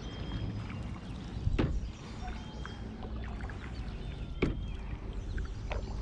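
Canoe paddling in an aluminum canoe: wooden paddle strokes in the water over a steady low rumble, with two sharp knocks about a second and a half and four and a half seconds in.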